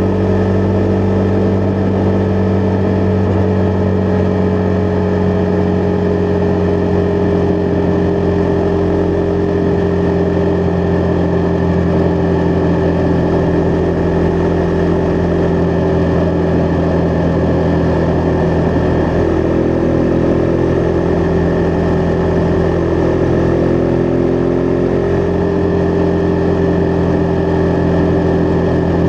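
Husqvarna Vitpilen 401's single-cylinder engine running at a steady cruising pace, its note holding almost even and easing down slightly past the middle before settling again.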